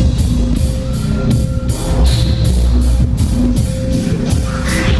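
Electro-industrial band playing live through a loud PA: a heavy, steady beat over deep bass, with a held synth note, heard from the audience.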